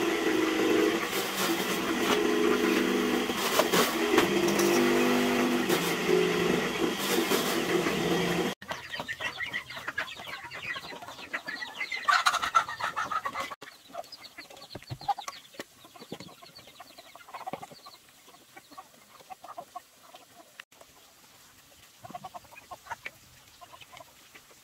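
Chickens and ducks clucking and pecking at mashed banana-stem feed in a plastic tub, with scattered pecking clicks and short calls. For about the first third, a louder steady sound with changing pitches covers them, then cuts off abruptly.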